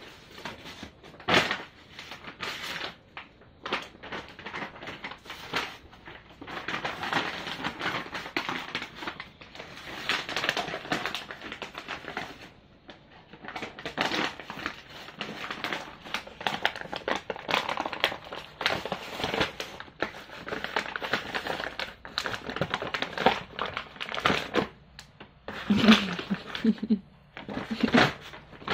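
Empty plastic dog-food bag crinkling and rustling as a beagle drags, noses and paws at it on a tile floor, in irregular bursts. A couple of short low pitched sounds come near the end.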